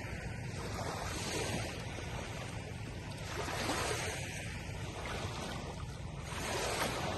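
Ocean waves breaking and washing on the shore, with a steady low rumble of wind on the microphone. The surf swells every few seconds, most strongly near the end.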